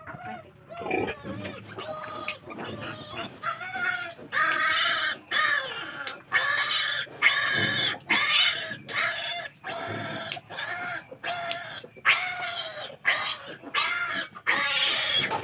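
Two-day-old piglet squealing in a rapid series of high-pitched screams, each about half a second to a second long. These are distress squeals from being restrained for teeth clipping and an iron injection.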